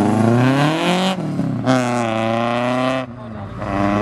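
Mk1 Volkswagen Jetta's engine accelerating hard through the gears: the note climbs, drops back at a gear change about a second in, climbs again, and drops at a second change about three seconds in.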